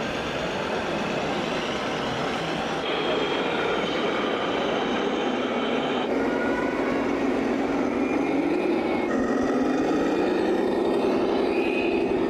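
Radio-controlled model trucks and tractor driving: a steady mechanical rumble, with a hum that rises a little in pitch in the second half.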